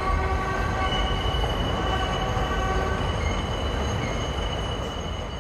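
Seoul subway Line 4 train running, heard from inside the car: a steady low rumble with high whining tones. Several of the whining tones die away about three seconds in as the train passes through the section where the power supply switches and the cabin lights go out. One higher whine holds on, and the overall sound eases down near the end.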